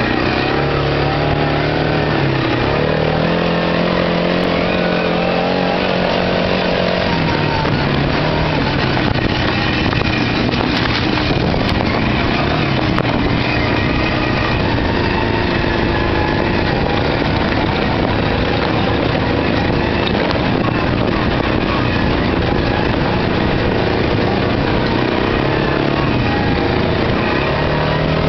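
Arctic Cat ATV engine running while riding over a rough trail, its pitch shifting up and down with the throttle, over a steady noisy rush.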